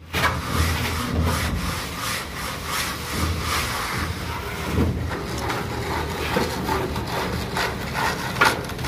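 Aluminium straight edge scraped back and forth across wet cement plaster, levelling the mortar with rhythmic rasping strokes about three a second. There is a sharper knock near the end.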